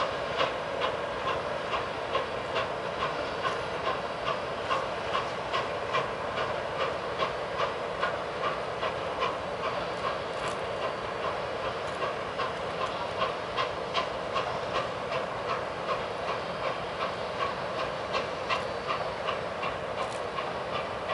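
Nickel Plate Road 765, a 2-8-4 Berkshire steam locomotive, working across the bridge with a steady exhaust chuff of about two beats a second over a continuous rumble of the moving train.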